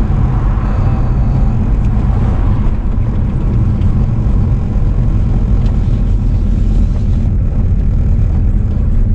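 Car cabin road and engine noise while driving: a loud, steady low rumble.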